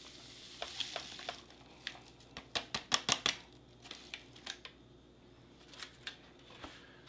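3-in-1 coffee powder poured from a foil pouch into a ceramic mug: a soft hiss of powder at first, then a run of sharp clicks and crinkles as the pouch is shaken empty, thinning out toward the end.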